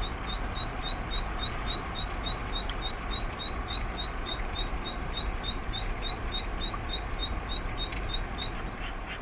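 Zitting cisticola singing its "hi-hi-hi" song: a long, even run of short, high notes, about three to four a second, that stops shortly before the end. Underneath is a steady hiss of rain.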